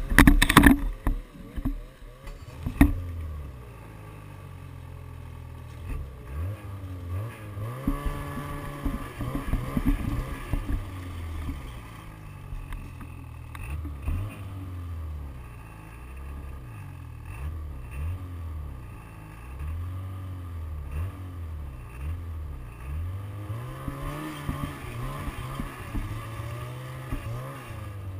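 Snowmobile engine running, its pitch rising and falling over and over as the throttle is opened and eased. A few sharp knocks come in the first three seconds.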